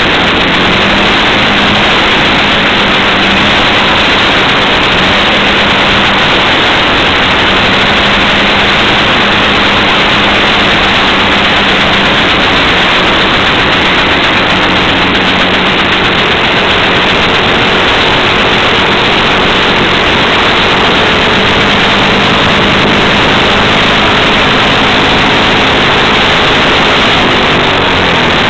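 Fuji Rabbit S301 scooter's engine idling steadily on its stand, heard close up as a loud, dense rushing noise with a low steady hum inside it. The hum dips in pitch near the end.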